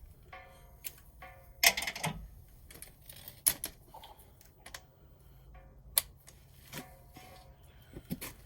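Irregular clicks and metallic clanks, with a few louder knocks spread through, from tools and wheel hardware being handled while changing a car's wheel.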